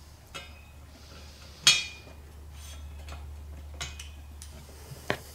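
Ratchet and socket clinking against a steel exhaust header pipe while O2 sensor adapters are screwed into its bungs: one sharp, ringing metallic clink about a second and a half in and a few lighter ticks, over a low steady hum.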